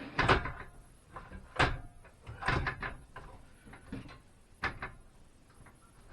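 A series of sharp knocks and clunks with small rattles between them, about five strong ones spread over several seconds, like hard equipment being handled and shifted.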